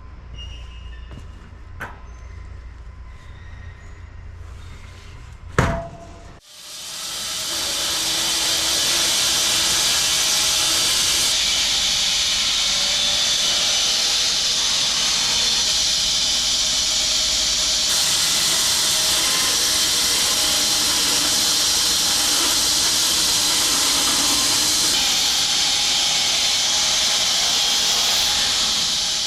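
A faint hum with a few clicks, then a sharp thump, then a loud, steady rushing hiss that builds over a second or two and holds.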